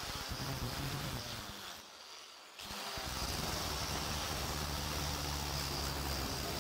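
Angle grinder with a sanding disc running steadily against a wooden grip block. The sound nearly drops out briefly about two seconds in, then resumes.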